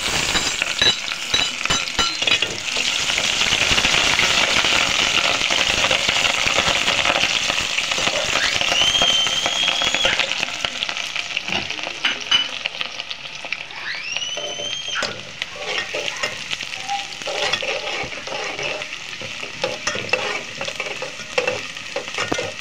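Sliced onions sizzling in hot mustard oil in an aluminium pot, stirred with a slotted steel spoon that scrapes and taps the pot. The sizzle is strongest in the first half and eases off later. Two short high whistling tones sound around the middle.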